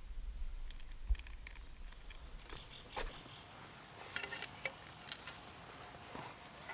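Scattered light clicks and taps, with a quick run of small clinks about four seconds in, from handling camp cooking gear. A low rumble underlies the first three seconds, then stops.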